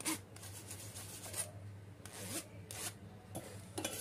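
Yogurt being rubbed and pressed through a fine-mesh metal soup strainer, giving a few short scraping strokes at irregular intervals.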